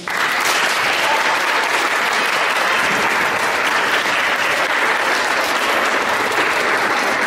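Audience applauding, starting suddenly and keeping up a steady, even clapping.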